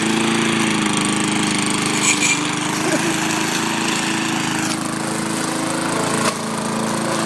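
Petrol walk-behind lawnmower engine running steadily at a constant pitch just after starting, with a few brief clatters over it and a drop in the higher sound a little before the end.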